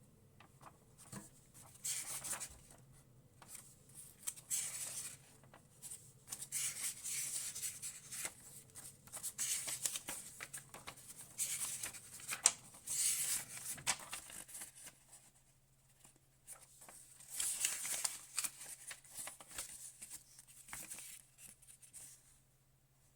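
Packaging being handled during an unboxing: irregular rustling and scraping that comes and goes in bursts, quiet for a moment about two-thirds of the way through.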